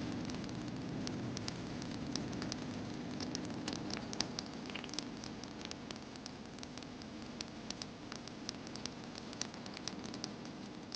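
Steady hiss with many irregular, sharp crackles and clicks scattered through it.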